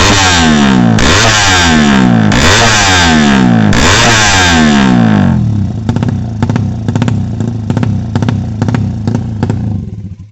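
A drag-tuned Suzuki Satria FU 200 cc single-cylinder motorcycle engine runs at full throttle, its note resetting about every second as it shifts up through the gears. About five seconds in the throttle closes and the engine drops away, with irregular pops and crackles, before the sound cuts off suddenly.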